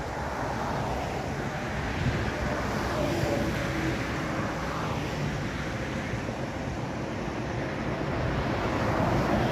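Road traffic passing steadily, with wind buffeting the microphone; it grows a little louder near the end as a heavy vehicle goes by.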